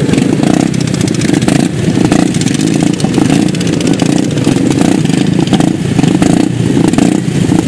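Racing lawn mowers' small petrol engines running together as the mowers wait on the start grid, a loud continuous blend of engine noise.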